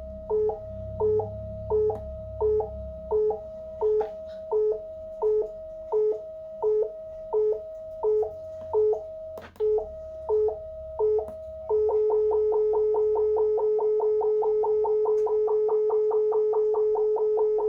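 Breadboard synthesizer kit's speaker sounding a buzzy electronic tone that alternates between a higher note and short lower blips about one and a half times a second. About twelve seconds in, it switches to one steady lower tone. This is the three-LED sequencer not behaving as intended, which the builder traces to a wiring change.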